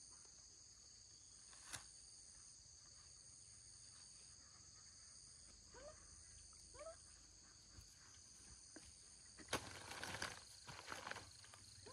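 Faint outdoor ambience of a steady high-pitched insect drone. Two short rising chirps come about six and seven seconds in, and a click about two seconds in. A sharper knock near the end is followed by rustling.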